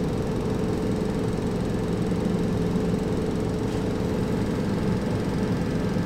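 An engine idling steadily: a low, even drone with a constant hum over it.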